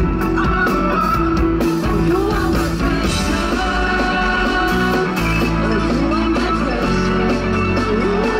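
Live pop-rock band playing through a PA, with electric guitar and a steady beat, and a male voice singing over it.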